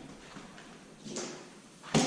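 Tools and engine parts being handled during a teardown: a light knock about a second in, then a single sharp knock near the end, the loudest sound.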